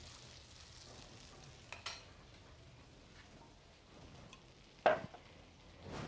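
Pork quietly sizzling as it fries in a pan, with a spatula stirring it. About five seconds in, one sharp knock as a glass blender jar is set down on a wooden cutting board.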